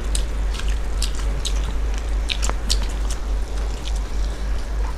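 Close-miked chewing and wet mouth smacks of people eating rice and chicken curry by hand, with irregular sharp clicks several times a second over a steady low hum.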